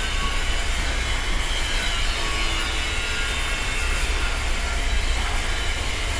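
Construction site ambience: a steady low rumble of heavy machinery running, with a constant hiss above it and no distinct hammer strikes.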